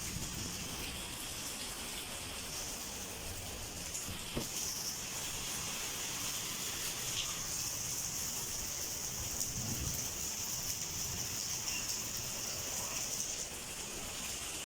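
Heavy rain falling steadily, an even hiss that cuts off abruptly just before the end.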